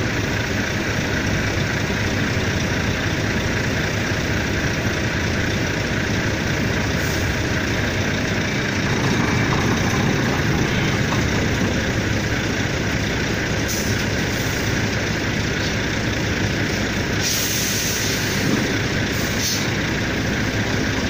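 Diesel truck idling steadily, with a few short hisses of compressed air from the air brake system partway through.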